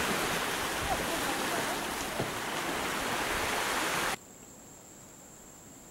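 Steady rush of sea surf and wind. It cuts off abruptly about four seconds in, leaving only a faint hiss with a thin high-pitched whine.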